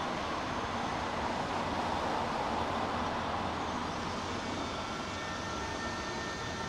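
NS SGMm Sprinter electric multiple unit approaching on the rails with a steady rumble and hiss. Faint steady whines join about four and a half seconds in.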